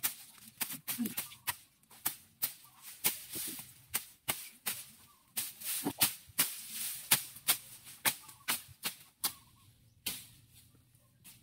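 Machete blade chopping through tall grass and weed stems in quick, irregular strikes, two or three a second, stopping about nine seconds in.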